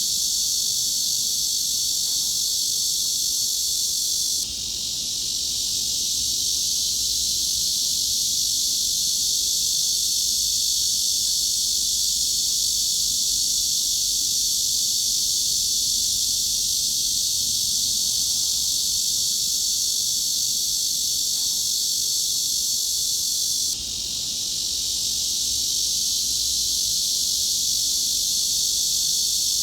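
Cicadas droning in a dense, steady high-pitched buzz, with no low sound beneath it. The level dips briefly about four seconds in and again some twenty seconds later, swelling back each time where the recording loops.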